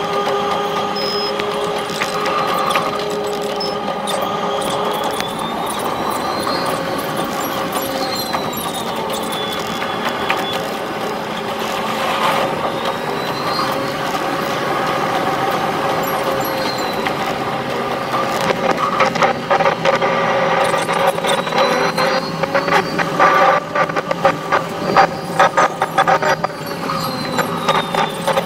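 Keihan electric train running, heard from the driver's cab and sped up six times: a steady hum with a high whine that rises and falls several times. From about two-thirds of the way through there is a fast rattle of wheel clicks over the track.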